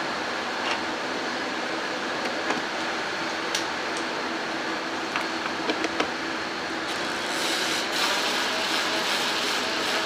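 Light clicks and knocks as the plastic engine cover is fitted back over the engine, then from about seven seconds in a cordless impact driver runs gently, driving the cover's bolts down. A steady hum sits under it all.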